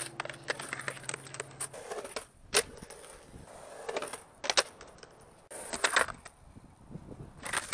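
Skateboard wheels rolling on concrete, broken by several sharp clacks of board pops, trucks striking a concrete ramp and ledge, and landings.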